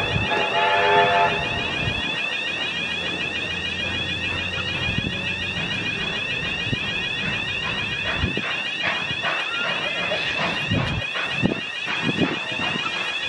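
Steam locomotive whistle sounding a chord of several notes, cutting off about a second and a half in, over a railway level-crossing alarm ringing in a fast, steady repeating pattern that carries on all the way through. Low thumps from the passing train come in during the second half.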